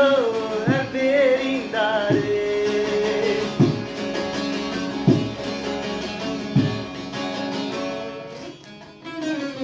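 Song music: a singing voice holds and bends its last notes over the first two seconds, then plucked guitar carries on alone with clear notes about every second and a half, fading down near the end.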